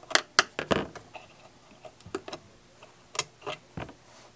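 Small screwdriver turning out the tiny mounting screw of a P-mount turntable cartridge, its tip and the screw clicking against the metal tone arm: a scattered series of sharp light clicks, several close together at first and a few more later.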